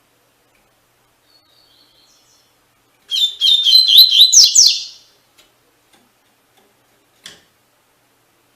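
Double-collared seedeater (coleiro) singing one fast 'tui tui' song phrase of high, quick gliding notes, lasting about two seconds and preceded by a few faint chirps. A short click follows near the end.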